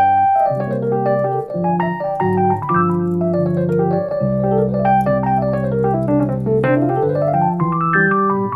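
Roland RD-08 digital stage piano playing an electric piano sound: held low chords under a right-hand melody, with quick runs up and down the keyboard near the end.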